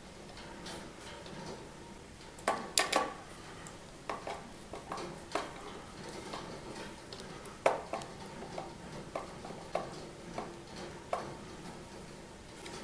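Screwdriver clicking and clinking against the small metal terminal screws and brackets of the pallet magnets as they are tightened. Irregular light clicks throughout, with a loud cluster about three seconds in and another sharp click near eight seconds.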